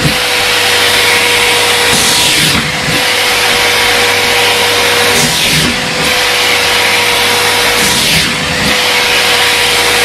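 Miele C3 canister vacuum cleaner running on a carpet, a steady rush of suction air over a constant motor whine. The air noise dips and swells briefly about every three seconds.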